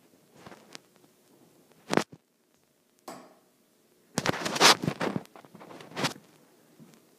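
Scattered sharp knocks and scuffs, a cluster of them about two-thirds of the way through: footsteps on a hard floor and handling of a hand-held recording device while walking through a house.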